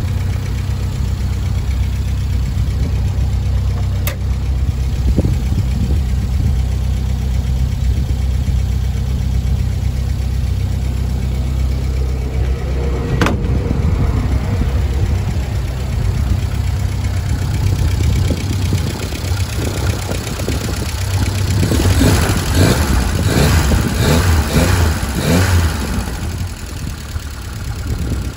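Fordson E83W's 1172 cc side-valve four-cylinder engine idling steadily, its noisy tappet freshly adjusted. Two sharp clicks stand out, and for a few seconds near the end a louder run of rapid knocks and scuffs sits over the idle.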